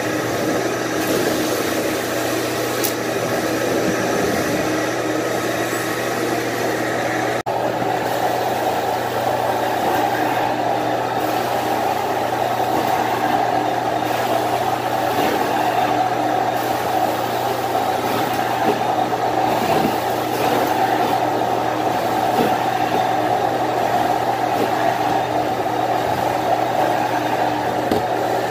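Carpet-cleaning machinery running steadily, a constant motor drone with a low hum, broken by a momentary drop-out about seven seconds in.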